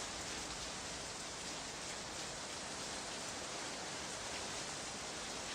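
A steady, even hiss like rain or rushing water, a sound effect from an old sound-effects record.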